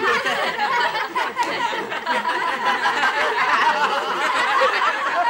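A group of children laughing and shouting all at once, many voices overlapping without a break.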